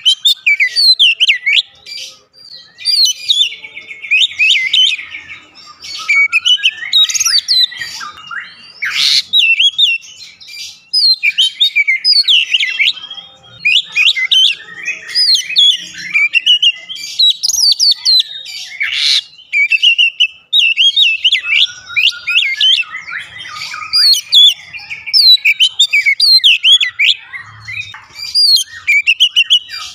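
Oriental magpie-robin singing continuously: a rapid, varied stream of whistled and chirping phrases, with a couple of louder, sharper notes along the way.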